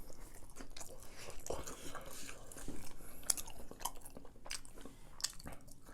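Close-miked chewing of a mouthful of crunchy food: soft, irregular crunches and wet mouth clicks.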